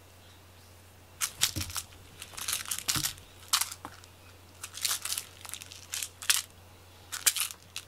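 Crinkling, crunching rustles in several short irregular clusters as a cat grabs and bites a cat-teaser toy mouse, with a couple of soft thumps.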